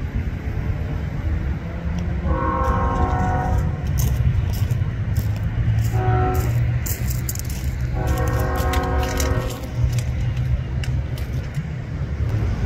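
Diesel freight locomotive's air horn sounding three blasts: long, short, then long, over the steady low rumble of the passing train.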